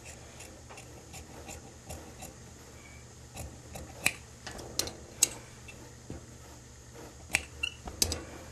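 Large tailor's shears cutting through suit-trouser cloth: a run of soft snips and blade clicks, with sharper clicks about four to five seconds in and again near the end as the shears are set down on the table.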